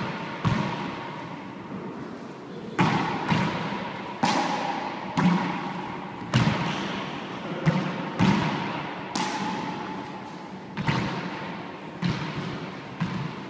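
A handball being struck with a gloved hand and smacking off the walls and floor of an enclosed handball court. There are about a dozen sharp smacks at uneven spacing, roughly one a second, each followed by a ringing echo from the hard walls.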